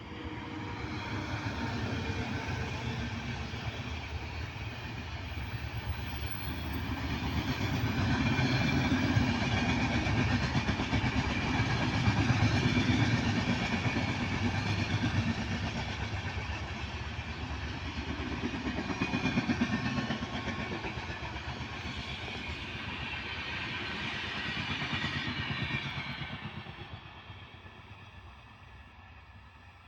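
A train passing by: the rumble of its wheels on the rails builds, stays loud with a few swells, and fades away about four seconds before the end.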